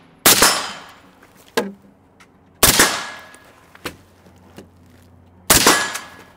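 AR-style rifle firing three single shots, roughly two and a half to three seconds apart, each followed by an echoing tail. A few much lighter knocks come between the shots.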